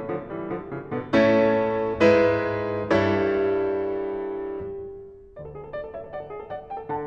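Grand piano playing classical music: quick running notes, then three loud chords about a second apart, the last one held and dying away for a couple of seconds before quick passagework starts again.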